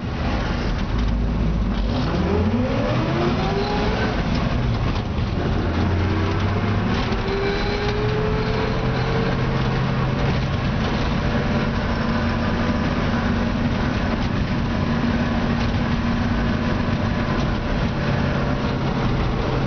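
1955 Chevrolet stepside pickup's engine, heard from inside the cab while driving. Its note rises steeply as the truck accelerates, drops at a gear change about four to six seconds in, then climbs slowly and settles into a steady cruise over road noise.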